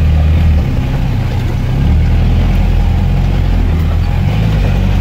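V8 engine of a lifted UAZ off-road truck, heard from inside the cab as the truck crawls along a muddy track in low gear. It runs at steady low revs, its pitch shifting a little as the throttle changes.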